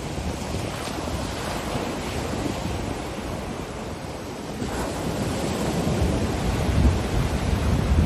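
Ocean surf breaking and washing up a sandy beach, with wind. A wave swells from about halfway through and is loudest near the end, with a deep low rumble.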